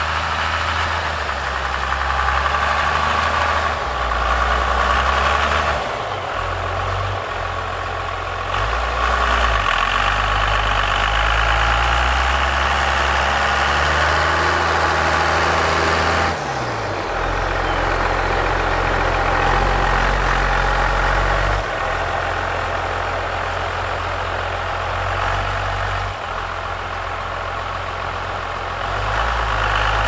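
1994 Dodge Ram 2500's 5.9-litre Cummins turbodiesel pushing the truck through deep snow, its engine speed changing in steps several times as the truck drives forward and backs up.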